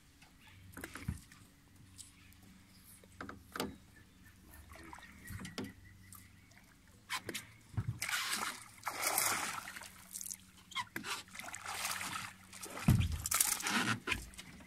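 Hooked peacock bass thrashing and splashing at the water's surface on a fly line. The splashing comes in bursts, loudest about eight seconds in and again near the end, with scattered light clicks before it.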